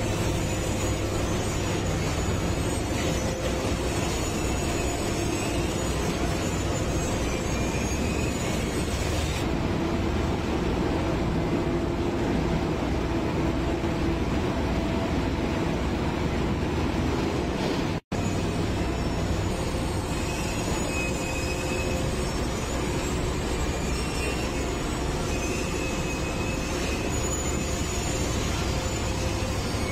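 Railway track-laying machinery running in a tunnel: a steady low engine rumble mixed with machine and rail noise. The sound cuts out for a moment about 18 seconds in.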